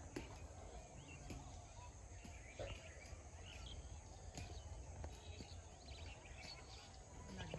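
Faint rural outdoor ambience: scattered short bird chirps over a steady low background rumble.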